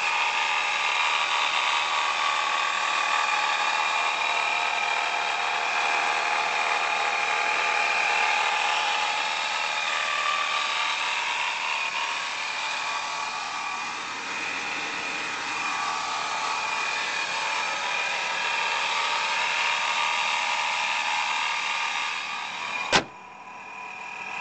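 Supercharged straight-six of a 1997 BMW E36 M3 idling steadily. A single sharp click comes near the end, and the sound is quieter after it.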